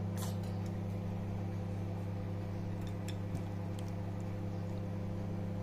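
A steady low electrical hum with a few faint light clicks as a ladle serves khichuri from a steel pot onto a glass plate.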